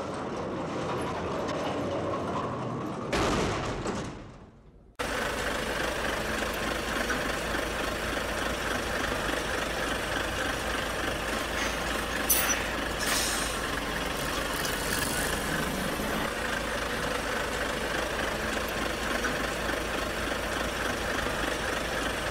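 A loud sudden sound about three seconds in fades into a moment of silence. Then a steady engine-like running sound carries on, with two short hisses near the middle.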